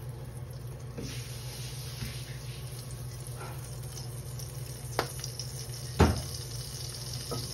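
Melting fat sizzling softly in a nonstick wok as cooking oil is poured in, over a steady low hum. A few light knocks, the loudest about six seconds in.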